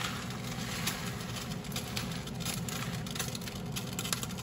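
A metal spoon scooping small annatto seeds out of a plastic packet, faint irregular ticks and rattles over a steady low hum.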